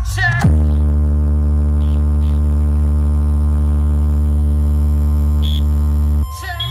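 A DJ sound system's bass speakers play a loud, steady, deep droning tone with many overtones. It starts about half a second in after a short falling electronic sweep, and drops out briefly near the end with another sweep.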